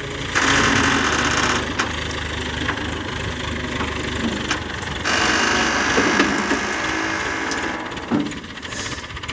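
Hydra mobile crane's diesel engine running under load as it drags the overturned truck on its wire rope, growing louder twice: about half a second in and again about five seconds in.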